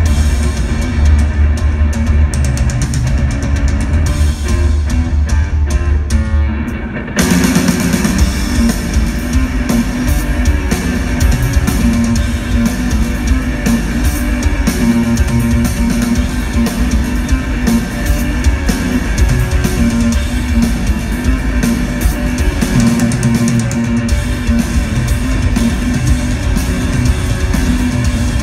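Live rock instrumental jam on bass guitar and drum kit through an arena sound system. A held low bass note opens it, then about seven seconds in a driving riff with the full drum kit comes in and keeps going.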